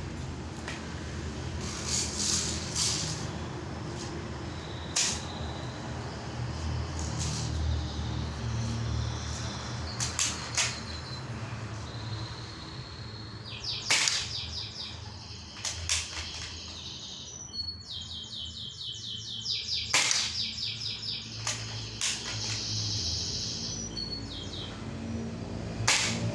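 Several sharp snaps a few seconds apart from a spring-powered airsoft Barrett M82 replica being fired. Birds chirp in repeated trills between the shots over a low steady rumble.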